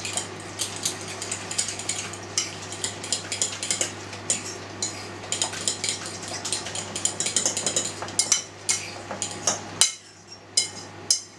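A utensil stirring an egg and fried-onion filling in a ceramic bowl, with quick, irregular clinks and scrapes against the bowl that thin out to a few separate clinks near the end. A steady low hum runs underneath and stops near the end.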